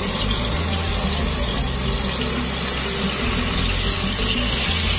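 Masala-coated seer fish (vanjaram) steaks sizzling in hot oil on a nonstick tawa: a steady frying hiss.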